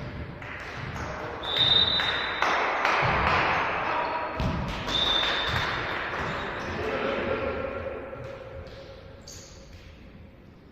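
Indoor volleyball play in a sports hall: the ball being struck and bouncing in a string of sharp knocks, with players' voices swelling up after a second or so and fading toward the end. Two short high-pitched chirps sound about a second and a half in and again about five seconds in.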